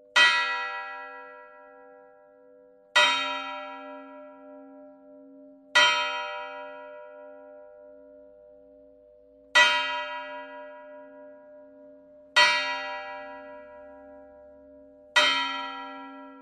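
A church bell struck six times, slowly, in two groups of three, each stroke left to ring out over a steady low hum, with a longer pause between the third and fourth strokes.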